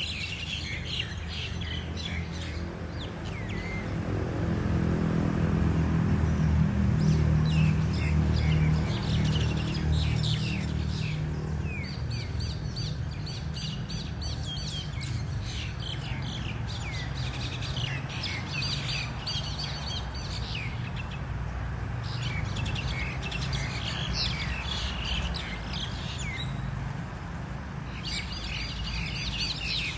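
A group of mynas squabbling, many chattering calls overlapping, with short lulls. A steady low hum runs underneath, louder in the first third.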